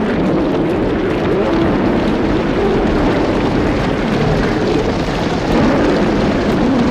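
A group of lions growling and roaring at once: a loud, unbroken mass of overlapping growls with wavering pitch.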